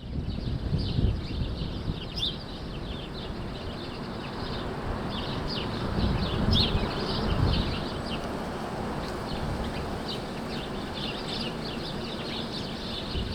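Many small birds chirping in a dense, continuous chatter over a steady low background rumble.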